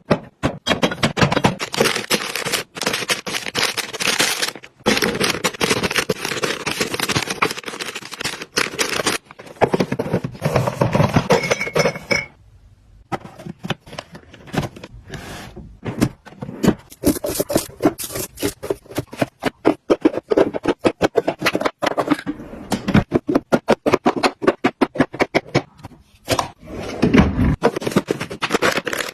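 Close-up handling noises: a dense run of clicks, knocks, scrapes and rustles as objects and packaging are picked up, set down and arranged, with a short lull about twelve seconds in.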